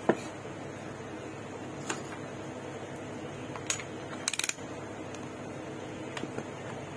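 Small, sharp clicks of hard objects being handled on a workbench, with a quick run of clicks about four seconds in, as a multimeter and tools are picked up and set down; a steady hum underneath.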